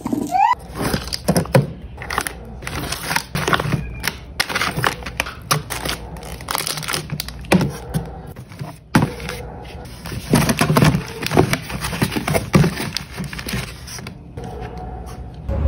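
Items being handled and set down while organizing: a quick, uneven run of knocks, clicks and crinkles.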